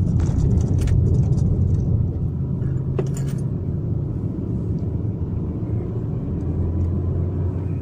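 Steady low engine and road rumble of a car driving, heard from inside the cabin. There is a single brief click about three seconds in.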